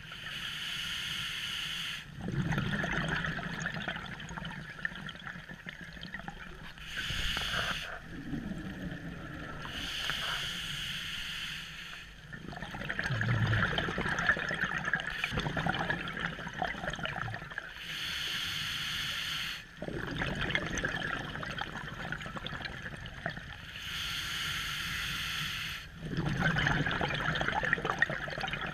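Scuba diver breathing through a regulator underwater: a steady hiss of about two seconds on each inhale, then several seconds of bubbling and gurgling on each exhale, about five breaths in all.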